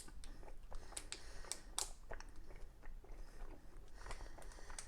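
A person chewing a big mouthful of protein bar, with irregular small clicks and crackles of the mouth.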